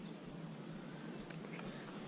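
Faint steady wind and water noise around a kayak on open water, with a few small ticks near the end.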